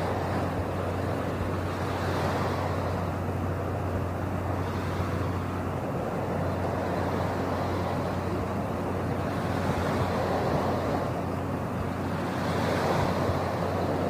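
Steady rushing background noise over a constant low hum, swelling and easing gently every few seconds: the ambience of an aquarium exhibit hall.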